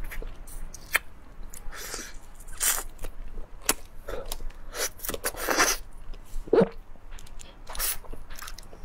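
Close-up eating sounds of a cooked hermit crab being bitten and sucked: repeated sharp crunches and cracks of shell, with wet sucking and chewing in between.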